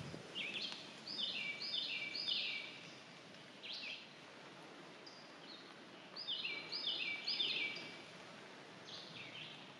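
A songbird singing two songs, each a run of a short two-note phrase repeated quickly four or five times, with a single phrase between them, over faint forest background hiss.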